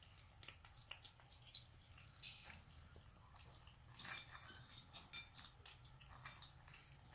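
Faint, scattered clicks and crunches of a capuchin monkey chewing and picking through his food, over a low steady hum.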